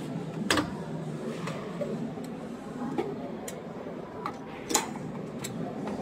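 Hard plastic clicks and clacks of a Hoover top-loading washing machine's lid being unlatched and lifted and its drum flap door opened, a sharp click about half a second in and another near the end, with smaller ticks between. Under them runs a steady low hum.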